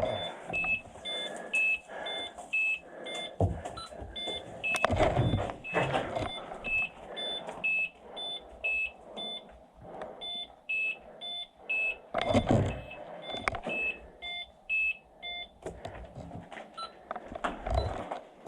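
Electronic airsoft game prop beeping: rapid, evenly spaced high beeps in two alternating pitches that stop about three seconds before the end. Dull thumps and rustling of movement sound in between, loudest twice.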